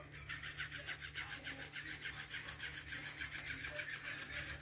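Electric flopping-fish cat toy switching into motion, its motor-driven tail flapping in a quick, even rhythm of scratchy rubbing strokes, several a second, against the fabric it lies on.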